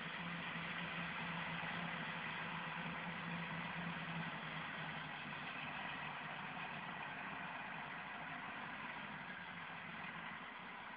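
Massey Ferguson 4355 tractor running a SIP Tornado 80 forage harvester in a corn field, a steady engine and machinery hum; the low hum fades about five seconds in.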